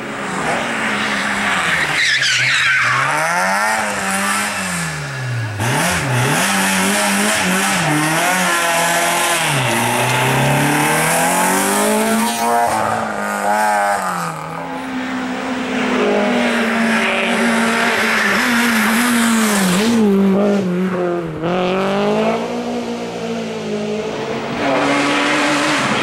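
Racing car engines on a hill climb, revving hard and changing gear. The pitch climbs and drops again and again as the cars accelerate and brake.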